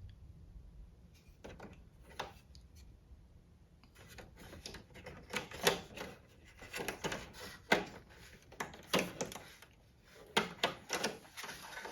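Irregular plastic clicks and knocks as the dehumidifier's control board is handled and fitted back into its plastic front panel. The first few seconds are almost quiet, with only a couple of faint clicks, then the clicking comes thick and fast.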